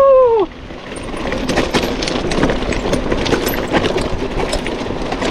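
Hero Octane Springbok 26 mountain bike rattling and clattering over loose rocks on a steep downhill, a dense stream of sharp knocks over a steady rumble. It opens with the tail of the rider's long rising-and-falling "ooh" shout, which ends about half a second in.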